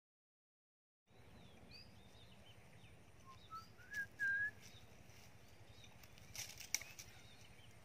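Silence for about a second, then faint outdoor ambience with birds chirping: several short rising chirps, the loudest about halfway through. A few light clicks near the end.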